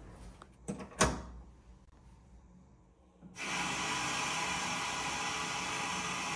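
Two sharp knocks, the louder about a second in, then water starts running from a bathtub's single-lever faucet about three seconds in and keeps running steadily.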